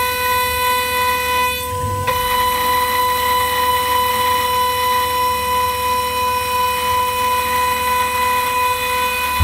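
High-speed vertical spindle of a Ringmaker 3-axis CNC jewelry milling machine whining steadily at one high pitch as its cutter mills the side of a metal ring blank. There is a low rumble under the whine and a brief dip about two seconds in.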